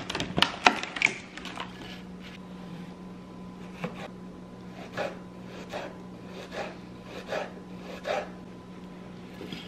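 Kitchen knife slicing a cucumber on a wooden cutting board: single chops against the board about once a second from about four seconds in. A few sharp clatters come in the first second, over a faint steady hum.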